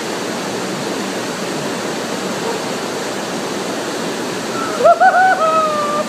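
Waterfall pouring into a rock pool, a steady loud rush of water. Near the end a person's voice lets out a high, wavering cry that settles into a long held note.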